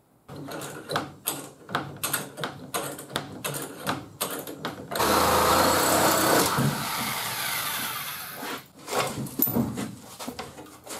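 Impact wrench hammering as it backs out the bolts of a pickup's damaged rear bumper: a series of sharp knocks, then a loud run of about a second and a half about five seconds in that carries on more quietly for a couple of seconds, then more knocks near the end.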